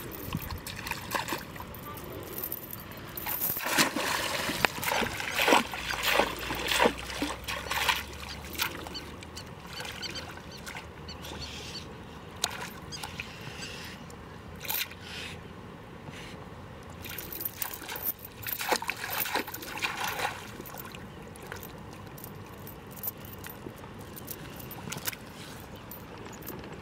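Shallow river water splashing and sloshing as a person wades and works in it at the edge. The splashing comes in two busy spells of sharp splashes, a few seconds in and again about two-thirds of the way through.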